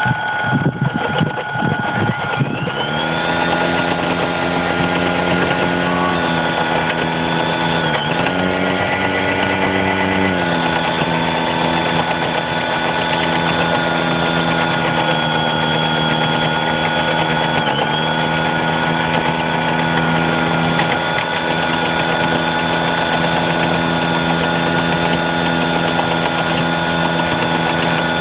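DJI Phantom quadcopter's electric motors running on after a crash, with the drone lying on its side in straw stubble. The sound is uneven at first, then settles into a steady whine about three seconds in, and its pitch dips briefly twice.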